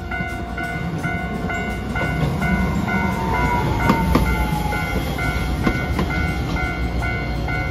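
A level-crossing warning bell rings steadily about twice a second while a Hiroshima Electric Railway Greenmover Max low-floor articulated tram rumbles past. A falling whine comes in about two seconds in, and a few sharp clicks come about four seconds in, as the wheels run over the rail joints.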